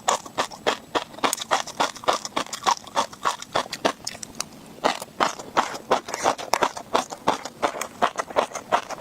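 Close-miked chewing of tobiko (flying fish roe): the tiny eggs crunch and pop between the teeth in a rapid run of sharp clicks, about four or five a second, with a short lull about halfway through.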